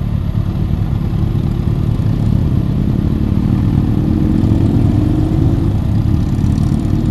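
Motorcycles riding past one after another at low speed, their engines running. About halfway through, one engine's note rises in pitch as it pulls away.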